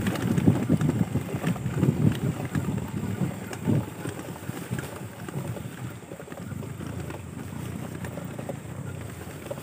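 Wind buffeting the microphone: a gusty low rumble, stronger over the first few seconds and easing about four seconds in.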